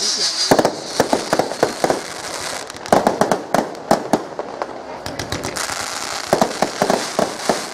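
Fireworks display: aerial shells and rockets going off in three quick runs of sharp bangs and crackles, with a high hiss between the runs.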